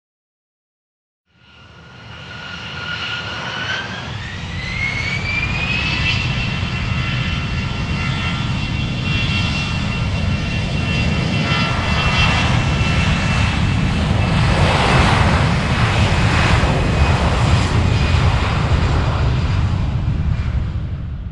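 Aircraft turbine engine starting a little over a second in: a high whine rises in pitch over a few seconds as the engine spools up, then holds steady over a loud rumble that keeps building before fading out at the end.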